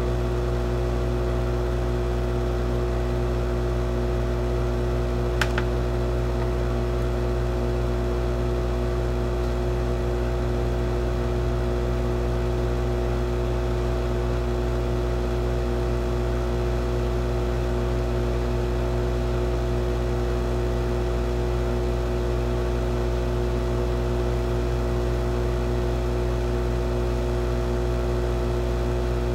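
Kendal 852D+ hot-air rework gun blowing steadily with an even hum, heating lead-free solder to desolder a 40-pin SSOP chip. There is a single light tick about five seconds in.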